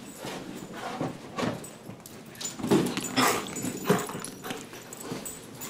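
Standard poodle making a series of short, excited vocal noises while lunging and mouthing at a plastic water bottle held out to him.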